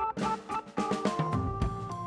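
Instrumental background music with drum-kit hits under held keyboard notes.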